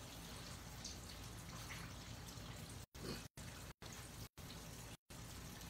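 Catfish frying in hot oil: a steady, faint sizzle. Several brief moments cut out to total silence.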